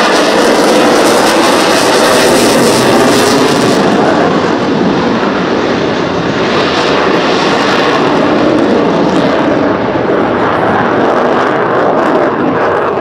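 A Rafale M naval fighter's twin M88 jet engines, a loud steady roar as it flies its display. The high hiss drops away about four seconds in, and the roar carries on with a slowly shifting tone.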